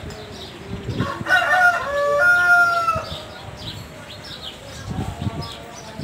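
A rooster crowing once: a quick run of short notes, then a long held final note that falls slightly.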